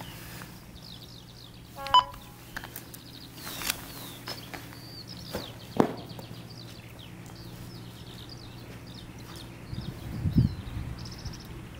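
Songbirds chirping and singing over a low steady hum, with one short, loud beep-like tone about two seconds in and a couple of low thumps later on.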